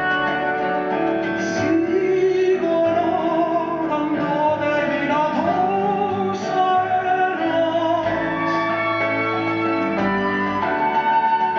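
Recorded song: a woman singing slow, long-held notes over instrumental accompaniment.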